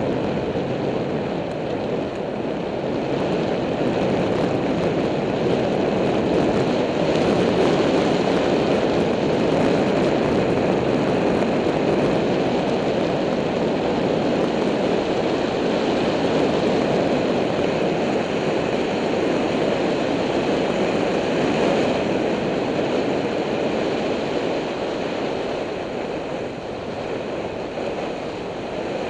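Steady rush of wind and road noise from riding a bicycle, a little louder through the middle and easing slightly near the end.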